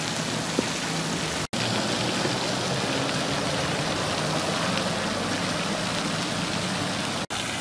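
Steady, even hiss of outdoor background noise, cutting out abruptly twice: about a second and a half in and again near the end.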